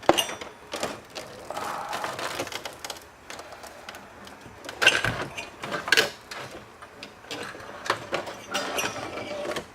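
Irregular clicks, knocks and scraping as a desktop PC power supply and its cables are worked out of the metal tower case, with a few sharper knocks in the second half.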